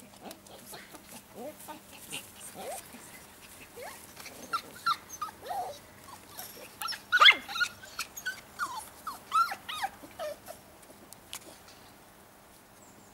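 Puppies whimpering and yipping in many short, high whines, sparse at first, thickening from about four seconds in, loudest around the middle, and dying away near the end.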